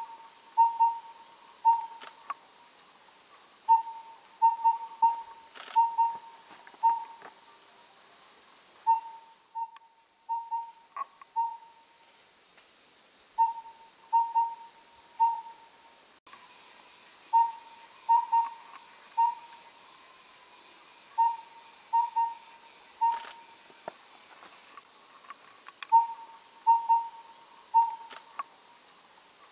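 Collared owlet calling: short, mellow whistled hoots on one pitch, in small groups of two to four notes repeated again and again. A steady high insect hiss runs underneath.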